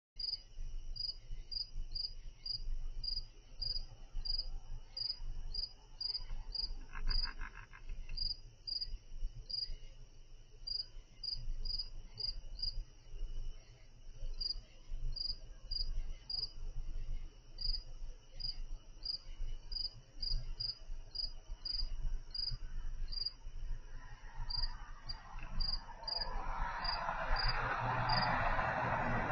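Crickets chirping steadily, about three high chirps a second, over a low hum. Near the end a broad rushing noise swells up, a vehicle passing on the road.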